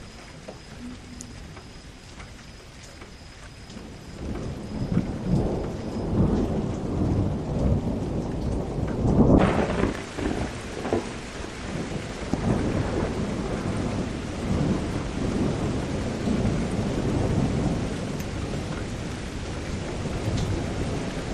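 Rain falling with thunder: a low rumble builds from about four seconds in and is loudest near the halfway point. At that moment the rain suddenly turns heavier and hissier, and it keeps falling with rolling rumbles.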